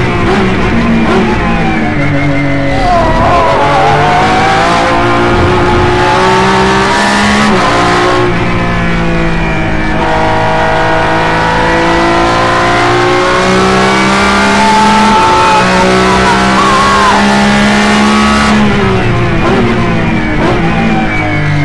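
Lamborghini Essenza SCV12's naturally aspirated V12 engine at racing speed, heard from inside the cockpit. The engine note climbs under acceleration and falls back at each gear change and when lifting off for corners, several times over.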